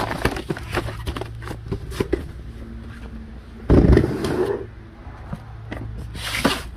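Cardboard-wrapped firework cakes and their box being handled: a run of light knocks and scrapes, a heavy thump a little after halfway as a cake is set down, and a brief rustling scrape near the end, over a steady low hum.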